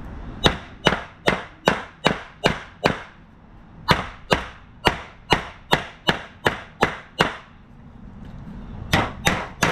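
Steady hammer blows on sheet metal, about two and a half strikes a second, in runs with short pauses between them: straightening a bent RV cabinet panel.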